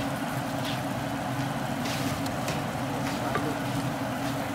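A steady low hum with a few faint scrapes of a wooden spoon stirring a thick sauce in a metal pot.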